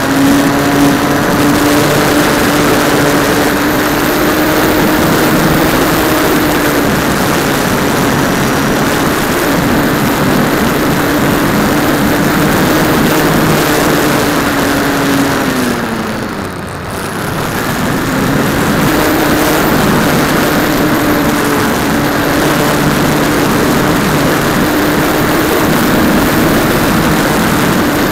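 Electric motor and propeller of an RC foam airplane running steadily in flight, heard from a camera on the plane, a steady hum over a constant rushing noise. About halfway through the pitch falls and the sound dips for a second or two, then rises back to its steady level.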